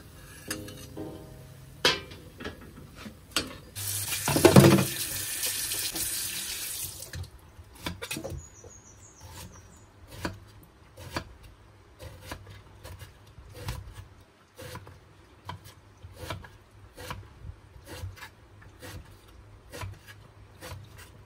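A tap runs into a stainless steel sink for about three seconds, then a knife slices a long green eggplant into rounds on a wooden chopping block, a steady run of cuts about one to two a second, each ending in a knock on the board.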